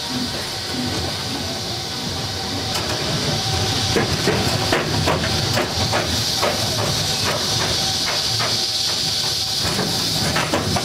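Small roller-coaster train running along its track: a steady rumble of the wheels under a constant hiss, with rapid clicks and clacks that get busier and a little louder about four seconds in.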